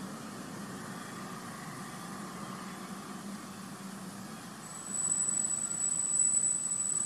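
A steady low background drone, joined about five seconds in by a loud, steady, high-pitched whine.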